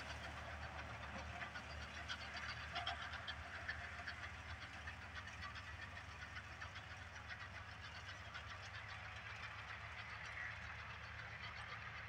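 Ford 3610 tractor's three-cylinder diesel engine running steadily under load, a faint low hum, with a haze of fine ticking above it.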